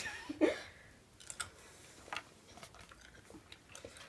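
Jelly beans being chewed with the mouth, small wet clicks and smacks scattered through, with a short vocal noise about half a second in.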